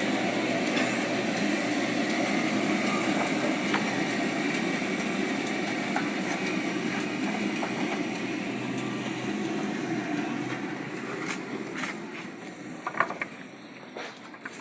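Band sawmill running with a steady mechanical noise that gradually fades over the last few seconds as it winds down, with a few sharp knocks near the end.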